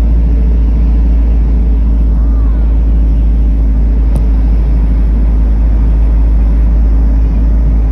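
Steady low rumble of a car's engine and tyres on a paved road, heard from inside the moving car's cabin.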